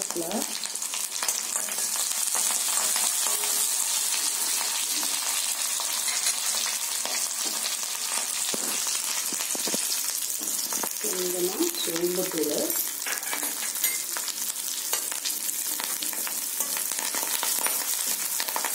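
Garlic frying in hot sesame oil in an iron kadai: a steady sizzle with fine crackling, stirred with a spatula near the end.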